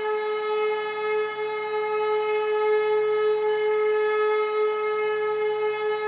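E57 electromechanical civil-defence siren sounding the all-clear (Entwarnung): one steady held note that neither rises nor falls, its loudness wavering slightly.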